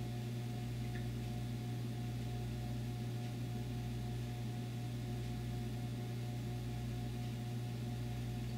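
Steady low electrical hum with a faint higher whine over it, unchanging throughout, from mains-powered equipment running in the workshop.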